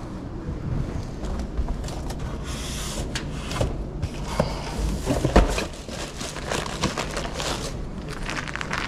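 Rustling, rubbing and clicking as food supplies are handled, with plastic packaging crinkling and items knocked about. There is one loud thump a little past halfway, over a steady low hum.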